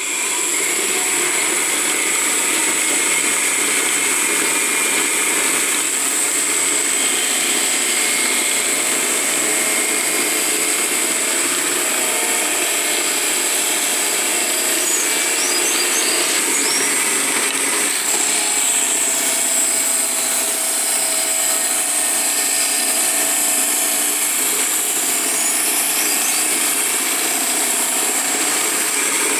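Homemade drum sander, a wooden drum belt-driven by an electric motor, starting up and then running steadily while thin wooden bars are sanded flat and straight against the drum. The noise is loud and steady, with a constant high-pitched whine.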